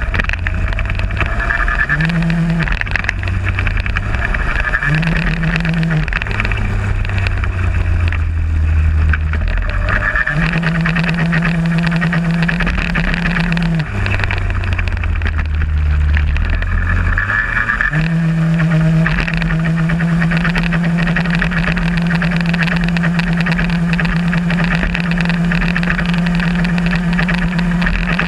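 VéloSoleX moped's small two-stroke engine running hard, heard from on board the bike. Its note drops and climbs back several times, then holds high and steady for the last ten seconds.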